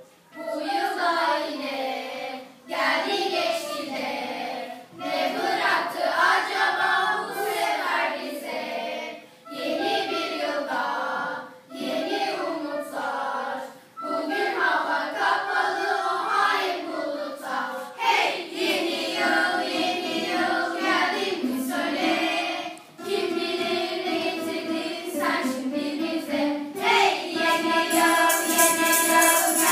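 Children's choir singing a song in unison in phrases of a few seconds each, accompanied by acoustic guitars. A high jingling percussion comes in near the end.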